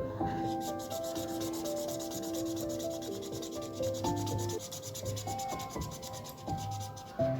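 Felt-tip sketch pen rubbing quickly back and forth on paper as an area is coloured in, rapid even scratchy strokes. Soft background music of held notes plays along with it.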